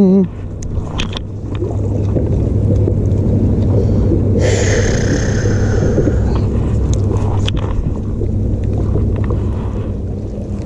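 Wind buffeting the microphone aboard a bass boat: a steady low rumble with a faint hum underneath, and a brief hissing rush about four and a half seconds in.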